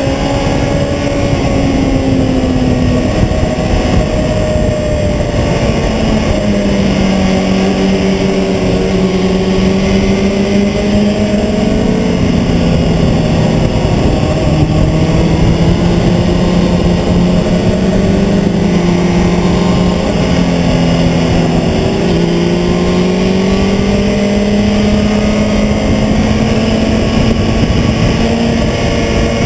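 Sport motorcycle engine running hard on a racetrack, heard from a camera on the fairing, its pitch sliding slowly down and back up as the rider works the throttle through the corners, under a constant rush of wind.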